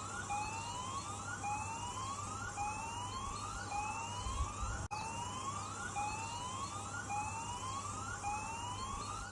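Tsunami warning siren sounding a rising whoop that repeats about once a second, with a steady tone beneath, warning people to leave the coast for higher ground.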